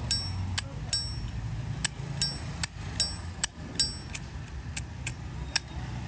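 Zippo lighter lid flicked open and snapped shut over and over: a sharp metallic click every half second or so, many of them followed by a short bright ping.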